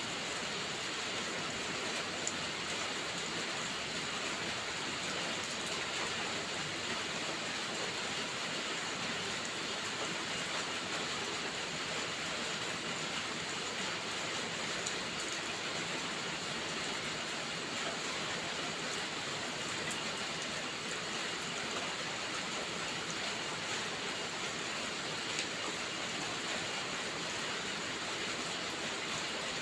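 Steady heavy rain, with a few faint crackles from a wood fire in a fireplace.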